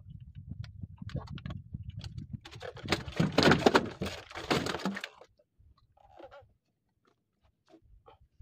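Freshly caught fish thrashing in a wooden boat's hold: a run of knocks and thuds that swells into a loud slapping burst, then dies away about five seconds in to a few scattered small knocks.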